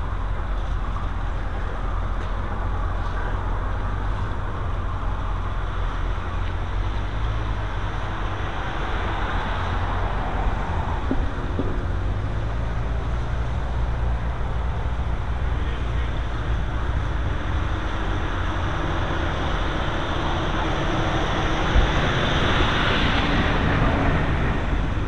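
Steady low rumbling background noise with a faint hiss above it, growing a little louder near the end.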